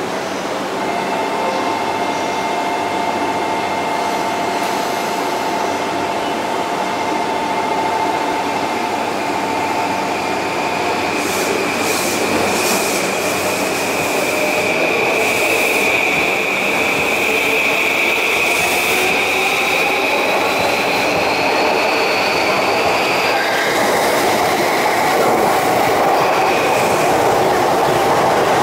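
JR East E235 series electric train starting off and accelerating from a station. Its traction inverter and motors give a steady electric tone while it stands, then a whine that climbs in pitch from about ten seconds in, with growing wheel-on-rail noise as the cars pass.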